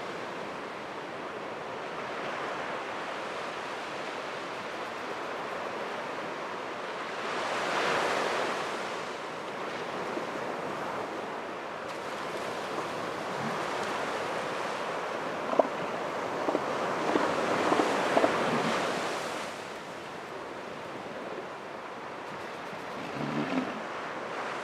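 Elephant seal snoring: long, noisy breaths, one swelling about eight seconds in and a longer one with rattling crackles from about sixteen to nineteen seconds in, then a short low grunt near the end.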